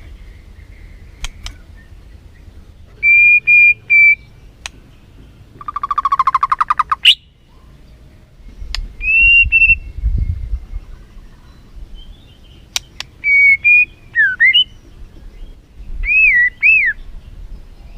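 White-rumped shama (murai batu) singing: loud, clear whistled phrases with pauses between them, a rapid rattling trill about six seconds in, and sharp clicking notes between phrases.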